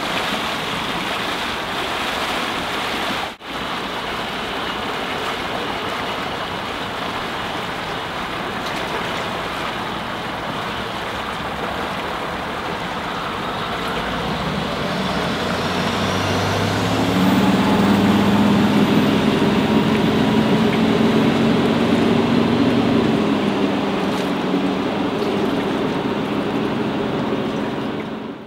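Volvo Penta D3-190 five-cylinder diesel stern-drive engine of a small cruising boat running on the water, its low engine note swelling to loudest about two-thirds of the way through and then easing off. A steady rush of water and wind runs underneath, with a brief dropout a few seconds in.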